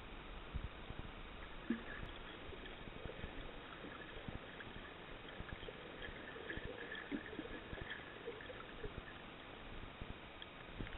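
Underwater ambience picked up by a submerged camera: a steady hiss with many small irregular clicks and crackles and a few short bubbling blips.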